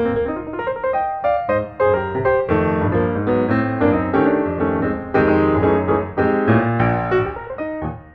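Background music: piano playing a lively run of notes, with a short break near the end.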